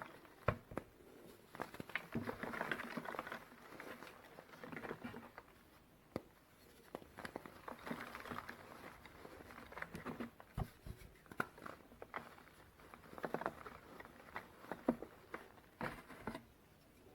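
Reformed gym chalk being crushed and crumbled, giving soft powdery crunches broken by irregular sharp cracks and crackles.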